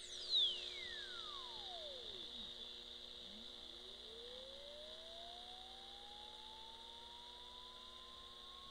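A circuit-bent clock radio's speaker puts out a single electronic tone that falls steeply from a very high whistle to a low pitch over about two and a half seconds. After a short gap the tone slowly rises again. Underneath run a steady high whine and a faint hum.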